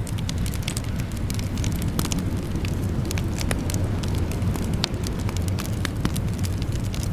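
Wood fire crackling in a fireplace: many small sharp pops at irregular moments over a steady low rumble of burning.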